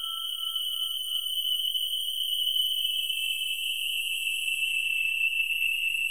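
A piercing, steady high-pitched electronic tone, shrill like an alarm, from a dark ambient horror track. A fainter lower tone fades out in the first two seconds, and a second, slightly lower high tone joins about halfway through.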